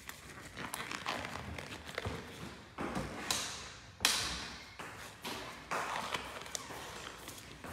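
Handling noises on a work table: a series of light knocks, taps and rustles. The loudest is a sharp knock about four seconds in.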